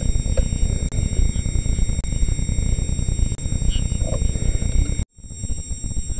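Steady low rumbling noise with a faint, constant high-pitched whine over it. The sound drops out suddenly about five seconds in.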